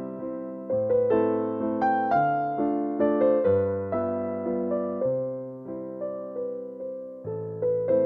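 Background music on a piano-like keyboard: a slow melody of struck notes, each fading away, over low bass notes.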